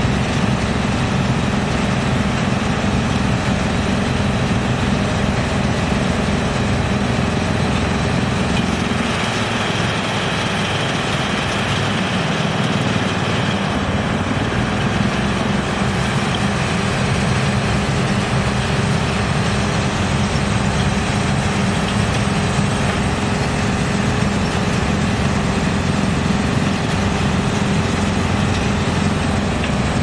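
Industrial wood chipper with a large electric motor running, a loud, steady mechanical din, with an excavator's engine running alongside. Between about 9 and 14 seconds the deepest rumble drops away and a higher hiss comes up.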